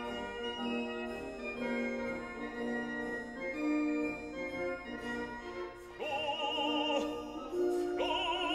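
Background classical music: sustained organ-like chords, then an operatic voice singing with wide vibrato from about six seconds in.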